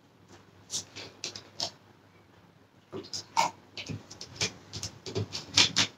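A person sipping a soft drink and swallowing, with a series of short wet mouth clicks and lip smacks, a few near the start and a denser run over the last three seconds.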